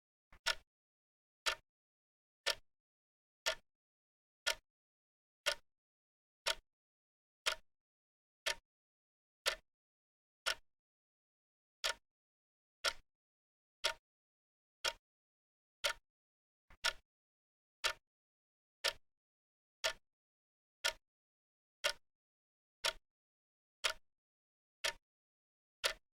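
Wristwatch ticking about once a second, each tick a short, sharp click with silence between. Now and then two ticks come close together.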